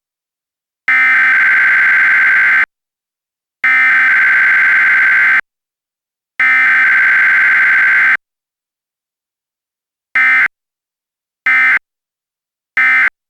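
Emergency Alert System SAME digital data tones: three long identical header bursts about a second apart, then, with no attention tone between, three short end-of-message bursts. This is the bare header-and-end-of-message pattern of a Required Weekly Test.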